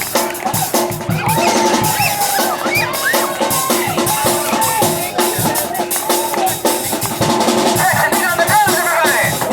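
A live street band playing: wind instruments hold and bend melody notes over a steady drum beat of snare and bass drum.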